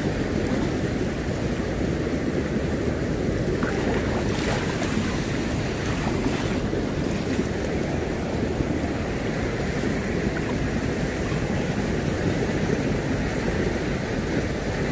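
Seawater sloshing and small waves washing at the water's edge as a cast net is hauled in through it, with wind rumbling on the microphone. A steady wash with no distinct events.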